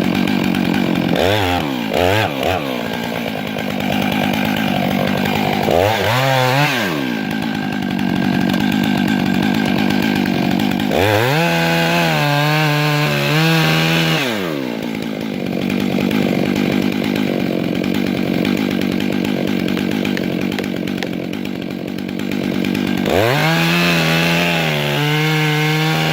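Chainsaw running hard while making the back cut to fell a large hemlock, its engine pitch rising and falling in several spells, with a steadier, lower drone between them.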